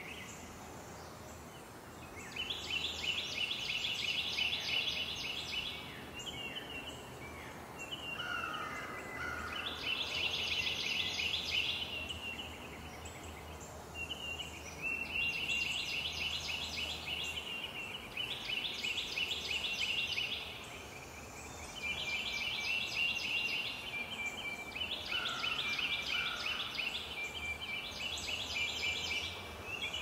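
Outdoor animal calls: rapid, high-pitched pulsed trills in bouts of two to three seconds, repeating every few seconds with short gaps, with a brief lower call twice.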